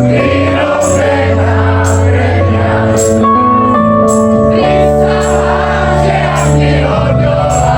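Live pop-rock band playing, with many voices singing along to the chorus and cymbals struck about once a second.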